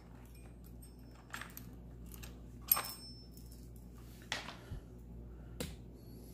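A loose chainsaw chain clinking and jangling as it is lifted and handled, with a few short sharp metallic clicks, the loudest about three seconds in.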